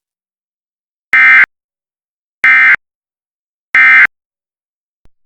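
Emergency Alert System end-of-message (EOM) data bursts sent over a broadcast: three short, loud digital buzzes, evenly spaced a little over a second apart, signalling the end of the alert message.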